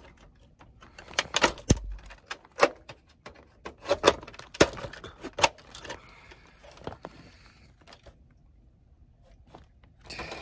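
Plastic electronics casing being pried and pulled apart by hand: a run of sharp clicks and knocks as the snap clips let go, one with a dull thud, then handling noise fading near the end.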